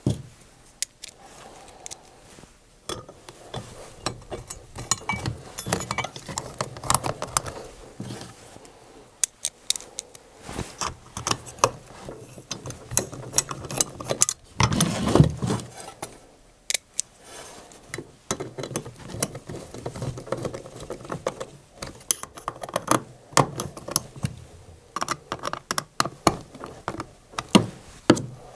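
Scattered clicks, taps and rattles of small screws, a screwdriver and a metal pump bracket and plastic plate being handled and fitted together while a condensate pump is fastened to its bracket, with a louder cluster of knocks about halfway through.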